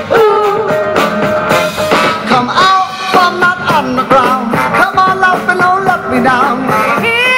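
Upbeat band music with a steady beat and a lead melody that slides between notes.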